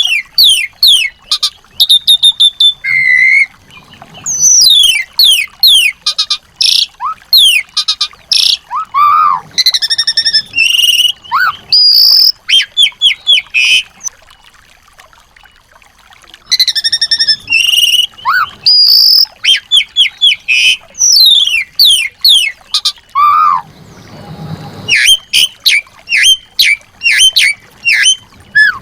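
Small songbirds singing: fast runs of high, sharply sweeping whistles and chirps, with a break of about two seconds midway and a short low rustle later on.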